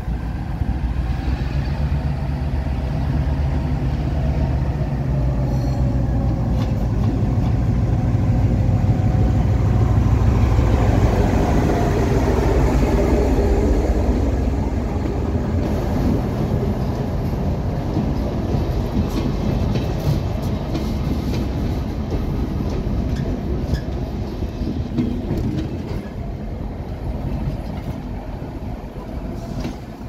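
GM G22 diesel-electric locomotive pulling two Materfer coaches into a station. The engine's low drone builds to its loudest about ten seconds in as the locomotive passes. The coaches then roll by with wheel clatter and clicks over the rail joints, and the sound eases off near the end.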